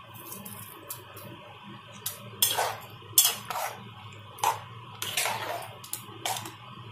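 Flat metal spatula stirring thick chicken curry in an aluminium pot, scraping and clinking against the pot's sides and bottom about half a dozen times.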